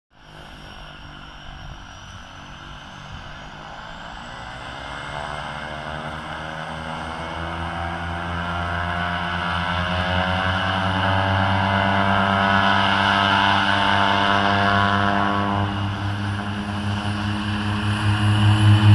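Small twin-engine turboprop airplane running up its engines for takeoff: a steady propeller drone that grows louder throughout, with a high turbine whine rising in pitch over the first few seconds.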